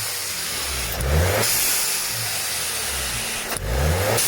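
Audi A3 1.8 turbocharged four-cylinder blipped twice, about a second in and again near the end. Each quick rise in revs is followed on lifting off by the hiss of a newly fitted aftermarket blow-off valve venting boost; the first hiss runs about two seconds.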